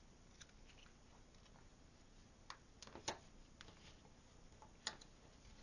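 Faint, scattered clicks and taps of stiff card pieces being pressed together by fingers, with two sharper clicks about three and five seconds in.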